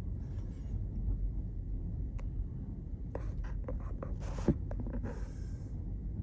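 Rustling and scratching close to the microphone, a run of short scrapes with a sharp knock about four and a half seconds in, over the steady low rumble of a ferry under way.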